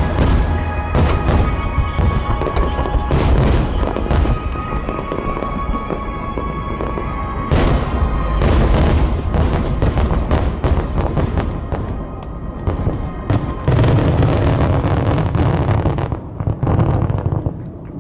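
Barrage of large aerial firework shells (10-inch shakudama) bursting in quick succession, deep booms overlapping with crackle, over music played for the show. The booms thin out near the end.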